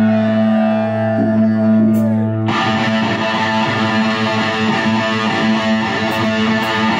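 Hard rock band playing live at full volume: a distorted electric guitar chord rings out held and steady, then about two and a half seconds in the drums and cymbals crash in with the full band.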